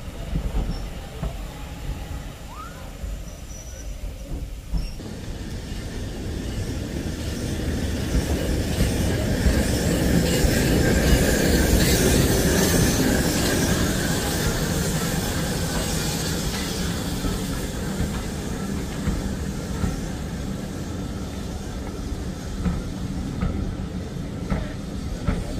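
Steam locomotive, a GWR Grange class 4-6-0, running past close by. It grows louder, is loudest about halfway through as the engine goes by, then eases as its carriages roll past. At first the tail of a train is heard rolling away.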